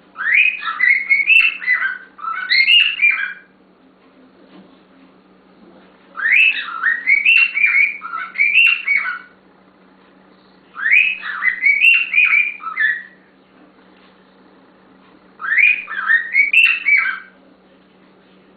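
A pet bird singing in four phrases of quick, sweeping whistled notes, each two to three seconds long, with pauses of a few seconds between them.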